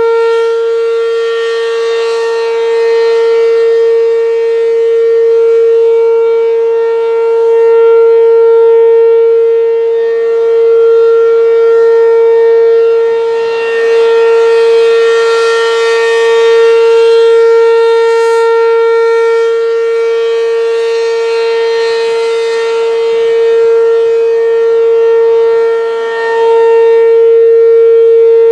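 American Signal Corporation RM-127 rotating mechanical outdoor warning siren sounding the steady alert tone, a single unwavering pitch that swells and fades as the rotating horn sweeps past. The siren is running healthily.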